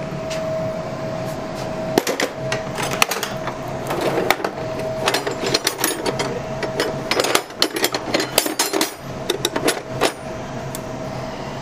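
Steel combination wrenches clinking and jangling against one another as hands sort through a crowded toolbox drawer, in many quick irregular metallic clicks. A steady faint hum runs underneath.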